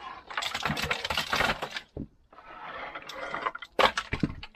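Flat stone slabs of a dry-stone wall being pulled off by hand, grinding and scraping against one another in two long stretches. Near the end come several sharp clacks of stone knocking on stone.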